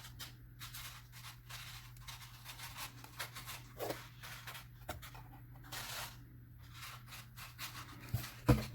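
Shears cutting thin copper sheet: a run of irregular crisp snips and scrapes, with a sharper snip near the end. The sheet is hard to cut.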